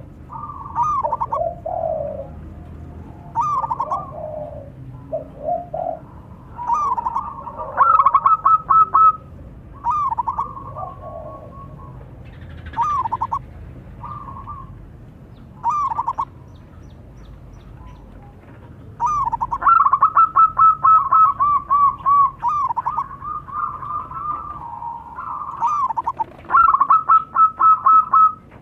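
Zebra doves (perkutut) calling back and forth: bursts of quick, rippling cooing notes, with a lower-pitched bird answering in the first few seconds. The calls overlap into longer runs about eight seconds in and again through the last third.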